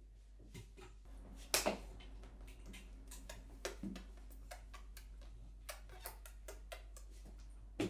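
Scattered small clicks and knocks of a folding tripod guitar stand being handled and unfolded as it is set up, with a louder knock about a second and a half in.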